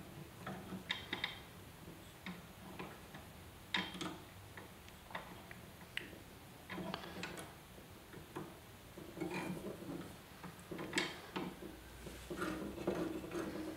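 Faint, irregular small metal clicks and taps from fingers handling a scroll saw blade and the saw's upper blade clamp as the blade is fitted and seated in the clamp.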